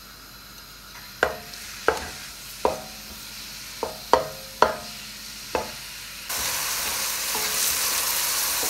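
A wooden spoon knocks about seven times against an aluminium pot while chopped onion is stirred in hot oil, each knock ringing briefly. About six seconds in, a loud, even sizzle of the onion frying starts abruptly.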